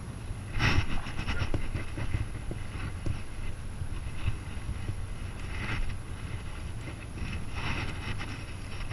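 Wind rumbling on the microphone, with a rustle about a second in as a sleeve brushes the camera. A hooked largemouth bass splashes at the surface near the end as it is brought to the boat.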